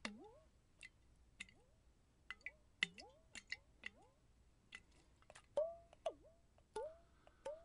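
Water-drop 'bloop' sounds from a glass mason jar partly filled with water, made by pulling a fingertip away from its metal lid. A quick irregular series of about fifteen short plops, each a sharp click followed by a sliding pitch, some dipping then rising.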